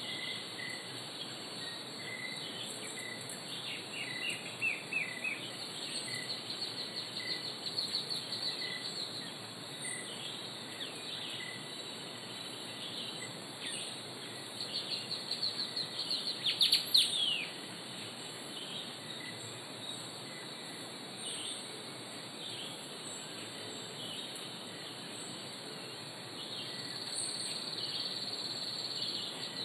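Natural outdoor ambience of birdsong and insect chirping. Scattered bird calls and trills run over a steady background, with a louder run of rapid chirps and falling whistles a little past halfway.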